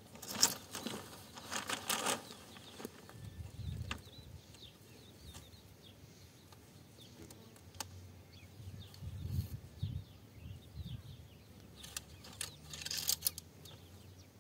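Coil of black plastic irrigation pipe being handled and pulled loose: short rustling, scraping bursts near the start and again near the end. Low wind rumble on the microphone in between.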